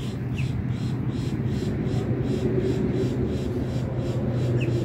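A steady low engine drone, with a higher engine note growing stronger from about two seconds in. Over it a faint high pulsing about three times a second and two short high chirps.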